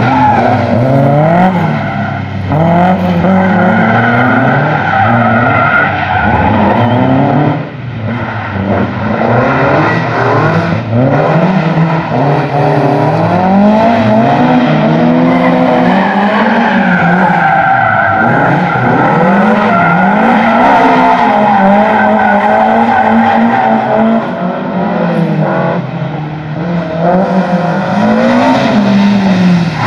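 BMW E30 M3's four-cylinder engine revving hard, its pitch rising and falling again and again as the car is thrown around a tight slalom course, with tyres squealing at times.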